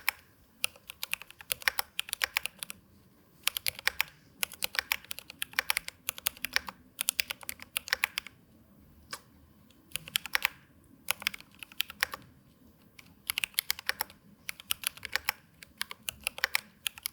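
Typing on a newly built Glorious GMMK Pro mechanical keyboard: quick runs of key clicks in bursts of a second or two with short pauses between them, as it is tested after a faulty switch was replaced.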